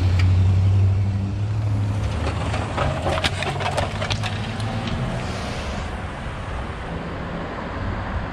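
A vehicle engine running with a steady low hum that fades about two seconds in, followed by a quick run of sharp clicks and clatter.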